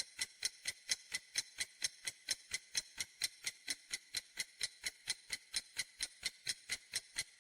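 Countdown-timer tick sound effect: sharp, evenly spaced ticks at about four to five a second, stopping shortly before the end. It times the thinking pause after a quiz question.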